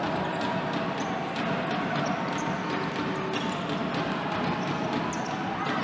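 Live basketball game sound: a ball bouncing on the hardwood court and short high sneaker squeaks over a steady hum of the arena.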